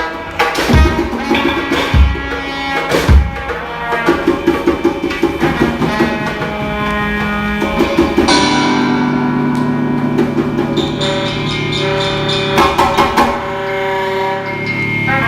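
Music: batucada-style drumming with deep bass-drum hits a little over a second apart and busy percussion over them. About eight seconds in it gives way to long held notes.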